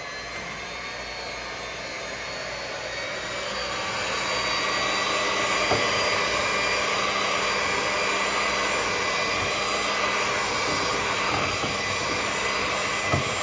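Handheld electric mixer running on speed 1, its beaters whirring through mango pulp, yogurt and milk in a bowl: a steady motor whine that grows louder about four seconds in, with a short knock about halfway and another near the end.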